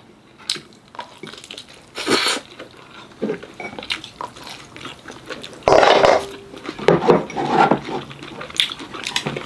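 Tableware sounds at a meal: spoon and chopsticks clicking against bowls. A few louder sudden sounds come about two seconds in and again near the middle.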